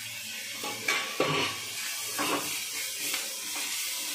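Diced potatoes, onions and tomatoes sizzling in oil in a non-stick kadai while a steel spatula stirs them, with a few scrapes and taps of the spatula against the pan about one and two seconds in.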